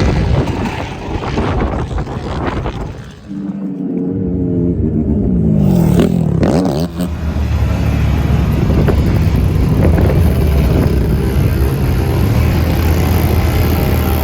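Off-road vehicle engines running and revving. From about four seconds in, one engine's note glides down and then swings back up, as a vehicle passing close by would, and then a steady low engine drone carries on.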